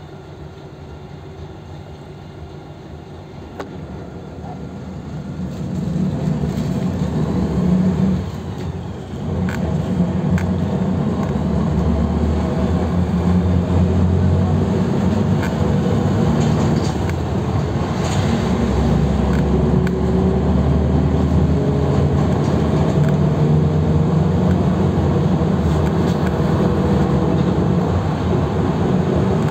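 A PAZ 320405-04 city bus's diesel engine, heard from inside the cabin. It idles low for the first few seconds, then revs up as the bus pulls away. There is a short drop at a gear change about eight seconds in, and then it runs steadily under load.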